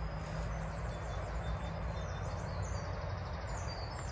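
Songbirds singing, a rapid run of short, high chirps, over a steady low rumble of background road traffic.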